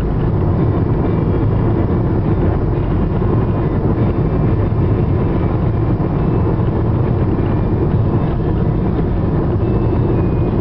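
Steady cabin noise of a Subaru Forester XT cruising on a paved highway: a constant low drone of tyres and engine, with no changes in pace or pitch.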